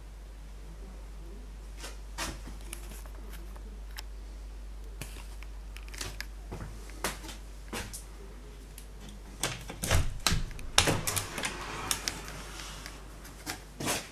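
Irregular sharp clicks and knocks over a steady low hum, busiest and loudest about two-thirds of the way through.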